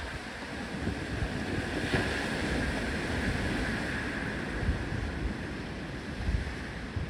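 Surf washing against a rocky shoreline, swelling about two seconds in and easing off, with wind rumbling on the microphone.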